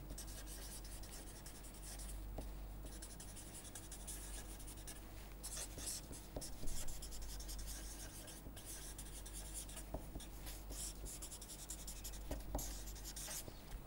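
Felt-tip permanent marker writing on paper: faint, irregular scratchy strokes as words are written out, over a low steady hum.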